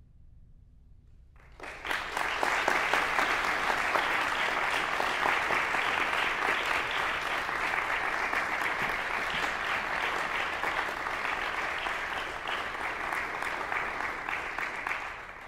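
The last grand-piano chord dies away, then audience applause breaks out about a second and a half in: dense, steady clapping that begins to fade near the end.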